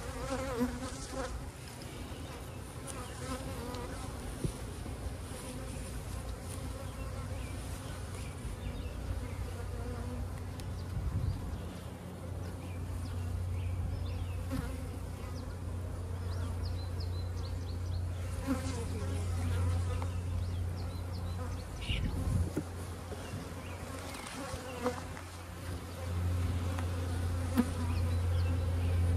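Honeybees buzzing around an open hive as bee-covered frames are lifted out, with a few light knocks of wooden frames. A steady low hum comes in about halfway through and grows louder near the end.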